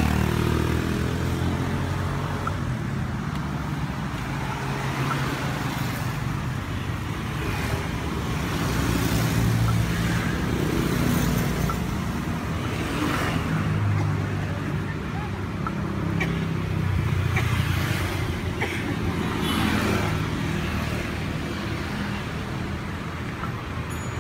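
Road traffic passing close by: motor vehicle engines rumble low, swelling and fading several times as vehicles go past.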